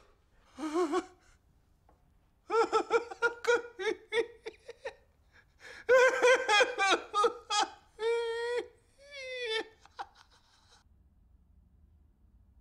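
A person laughing in two runs of rapid, high-pitched ha-ha bursts, then two long drawn-out cries, the second wavering and falling, before the laughter stops a couple of seconds from the end.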